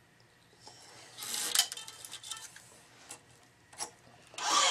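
Tennis racket string being drawn by hand through the grommets and across the other strings in rasping pulls, the first about a second in and a louder, longer one near the end, with light metallic clinks and ticks from the stringing machine in between.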